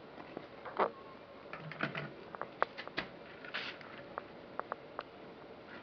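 Scattered light clicks and taps with a few brief rustles, the sound of a calabash gourd being picked up and handled.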